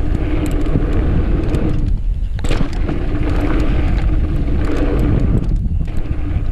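Mountain bike riding fast down a dirt singletrack: tires rolling on the dirt with a steady hum, wind rumbling on the microphone, and scattered sharp rattles and clicks from the bike over the bumps.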